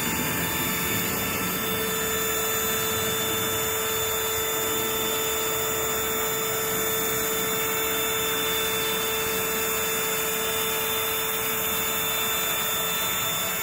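AUTO-VOX 12V DC portable electric air pump running steadily, a constant motor whine over a rush of air, as it inflates or deflates an inflatable.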